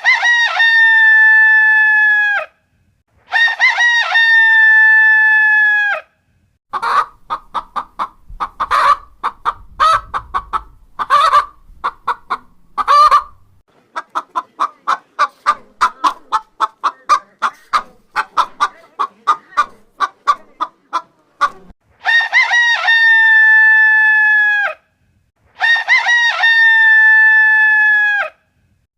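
Rooster crowing four times: two long crows at the start and two more near the end, each dropping in pitch as it ends. In between comes a long stretch of rapid clucking.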